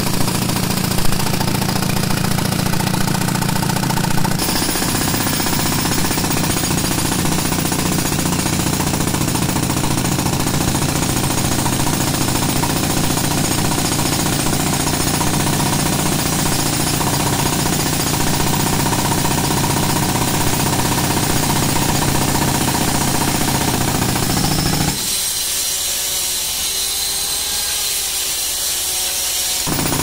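Pneumatic jackhammer (concrete breaker), run on air from a tractor-driven compressor, hammering continuously into a concrete slab. For a few seconds near the end the sound turns thinner and a little quieter.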